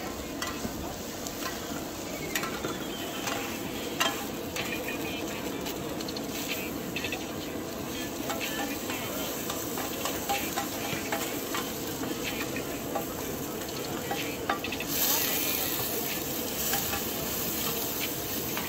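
Oyster omelette frying on a large flat wok: egg and oysters sizzling in hot oil while two metal spatulas scrape and clack against the pan. About fifteen seconds in, the sizzle turns louder and hissier as steam billows up.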